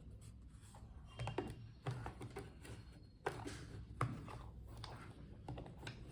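Screwdriver kit being handled: several small clicks and knocks of the bits and case, the loudest about four seconds in.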